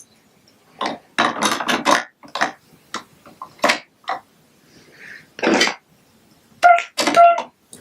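Plastic Lego Duplo bricks and figures clattering and knocking together as they are handled, in an irregular run of sharp clicks, densest in the first couple of seconds.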